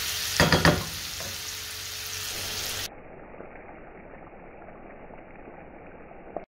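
Chopped onion and garlic sizzling in hot oil in a frying pan, with a wooden spoon stirring and scraping the pan a few times about half a second in. From about three seconds in the sizzle goes on quieter and duller.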